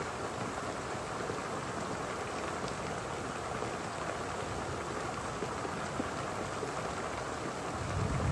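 Heavy rain pouring down, a steady even hiss. Near the end a low rumble sets in beneath it.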